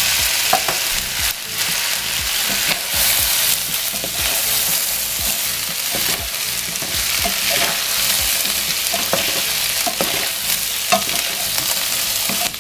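Potatoes, onion and mushrooms sizzling in oil in a frying pan, stirred and turned with a wooden spatula. The spatula scrapes and knocks against the pan over the steady sizzle.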